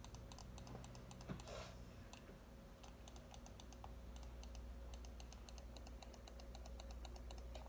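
Faint, rapid, irregular clicking of a corded computer mouse's buttons, pressed over and over.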